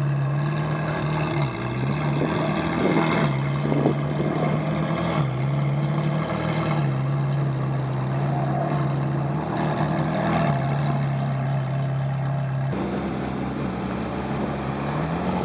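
Ferrari V8 idling with a steady low note that steps up and down, with a couple of light throttle blips about three and four seconds in. Near the end another Ferrari's engine is heard idling.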